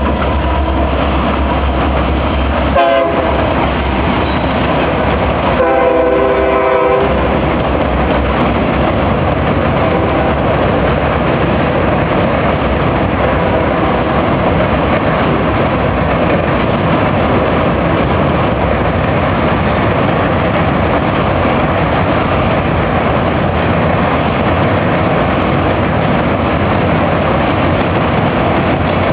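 Train sounding its horn, a short blast about three seconds in and a longer one about six seconds in, then the steady rumble and clatter of the train rolling across the drawbridge.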